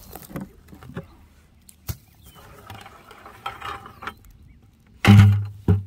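An upturned plastic bucket over a young elderberry bush being uncovered: a rock is lifted off its lid and the bucket pulled away, with clicks, plastic scraping and rustling. Near the end come two loud, low thumps.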